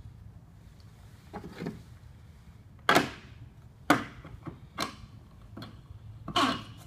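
Several sharp knocks and clunks of parts being handled and fitted onto a Boss H-Drive mud motor, the loudest two about three and four seconds in, over a low steady hum.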